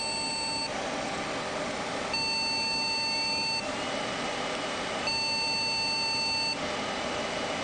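A desktop PC's internal speaker sounding long, steady beeps about a second and a half each, repeating every three seconds or so without stopping. This is the BIOS POST beep code for a loosened memory module. A faint steady hum runs underneath.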